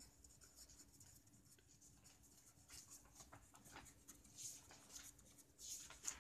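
Green marker pen writing on paper: faint, irregular scratching strokes of the tip across the sheet, a little louder about four and a half seconds in and just before the end.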